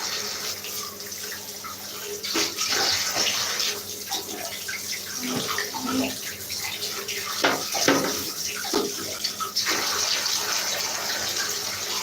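Tap water running and splashing in a sink while plastic vacuum-cleaner parts are rinsed and handled. Now and then there are knocks and clatters of plastic against plastic.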